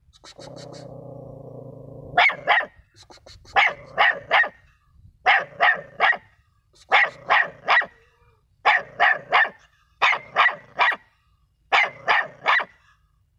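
A puppy barking in quick bursts of two or three high-pitched barks, a burst about every second and a half. A low steady hum sounds before the first burst, which comes about two seconds in.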